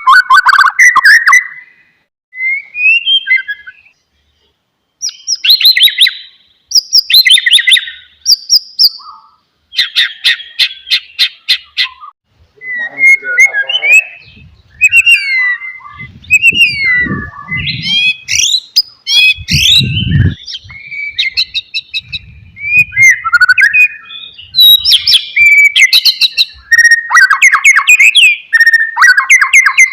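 White-rumped shama (murai batu) singing: a long run of varied loud whistled phrases, fast trills and rapid chattering notes, broken by short pauses. A low rumble sits under the song twice, around the middle.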